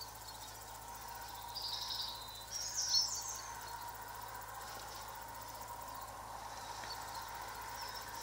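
Steady quiet background hiss, broken by two short high chirps from a small bird about two and three seconds in.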